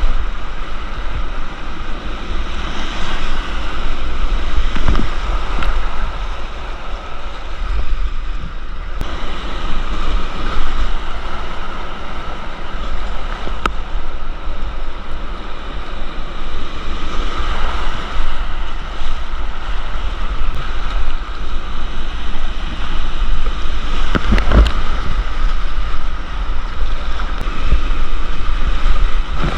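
Whitewater rapids rushing around a kayak, with wind buffeting the microphone. A sharp thump cuts through about three-quarters of the way in.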